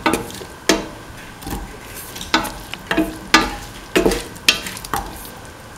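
A cooking utensil scraping and knocking against a stainless steel pot while stirring sautéing cauliflower, tomatoes and onions, a stroke every half second to a second, over a faint sizzle.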